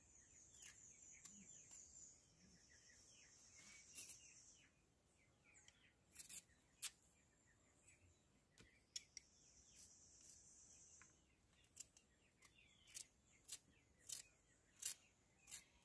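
Faint, sharp clicks of a knife cutting through heart of palm, coming in a steady rhythm of about three cuts every two seconds near the end. Behind them, a high buzz comes and goes and faint chirps are heard.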